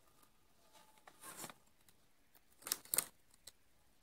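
Soft scrapes and clicks of a hand tool working the metal needles on a Passap double-bed knitting machine: a brushing scrape a little after a second in, then a few sharper clicks near the end.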